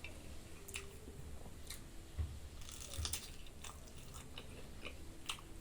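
A person chewing a mouthful of dal bhat close to the microphone, with scattered soft wet mouth clicks and smacks.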